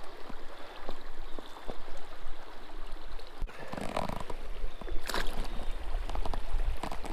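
Fast-moving creek water rushing and gurgling steadily, with wind rumbling on the microphone. A brief splash about five seconds in as the brown trout is let back into the current.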